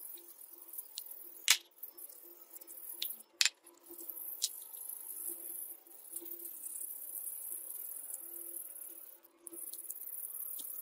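Sandpaper on a block rubbed back and forth over the wooden stock of a vintage double-barrel shotgun: a steady scratchy rasp with brief pauses. Two sharp clicks come in the first few seconds.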